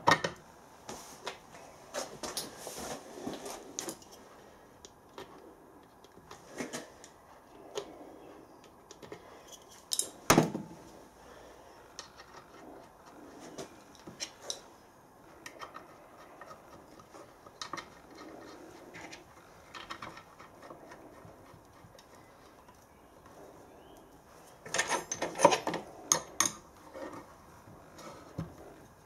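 Scattered metal clinks and knocks of steam engine main bearing caps, nuts and a spanner being handled and set in place, with one sharper knock about ten seconds in. Near the end comes a quick run of clicks as a spanner tightens the cap nuts.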